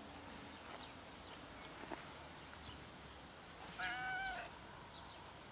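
A cat meowing once, about four seconds in: a single call about half a second long.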